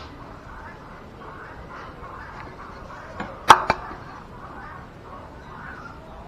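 Two sharp knocks about three and a half seconds in, in quick succession, over a steady background hiss.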